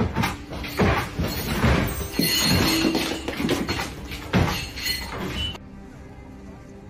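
Rattling, knocking and creaking of a high-rise room shaking in an earthquake, with many sharp knocks over a dense noisy clatter. It cuts off suddenly about five and a half seconds in, leaving a faint steady background.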